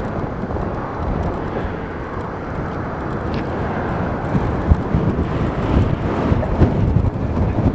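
Approaching EMD SD70ACu diesel locomotive, its 16-cylinder two-stroke engine and the train's rumble growing louder, with scattered low thumps in the second half.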